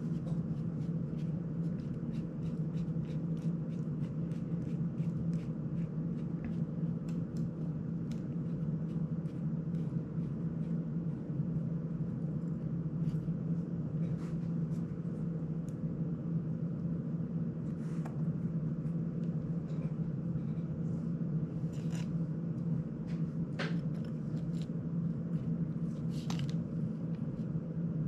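Light metallic ticks and clicks of a small screwdriver and tiny screws being worked on an FPV drone frame: rapid small ticks in the first half, a few sharper clicks later, over a steady low hum.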